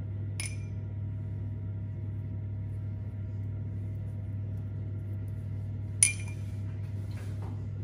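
A glass jug clinking twice while egg wash is put on scones: a light clink just after the start and a louder, ringing one about six seconds in. A steady low hum runs underneath.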